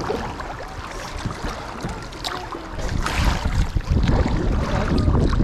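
Kayak paddle blades splashing and river water lapping against an inflatable kayak during paddling. Wind rumbles on the microphone, growing louder from about three seconds in.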